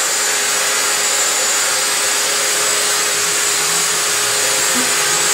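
CNC milling machines running in a machine shop: a steady, loud whir with a constant mid-pitched hum and a high whine.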